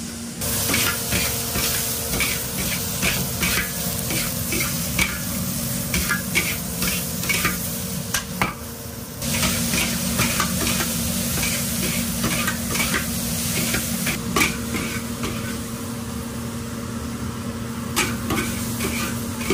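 Napa cabbage stir-frying in a hot pan: a steady sizzle with frequent clicking spatula strokes against the pan, and a short lull about eight seconds in.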